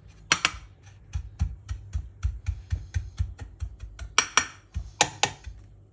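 Small glass bowl tamping a buttery crushed-biscuit base into a glass baking dish: a quick run of soft taps and thuds, about four or five a second, with a few louder glass-on-glass clinks about half a second in and again near the end.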